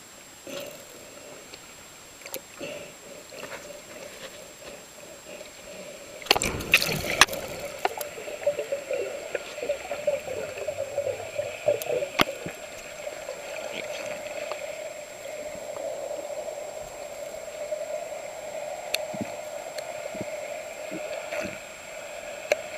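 Water gurgling and sloshing around the camera, with scattered sharp clicks and a louder burst of splashing about six seconds in.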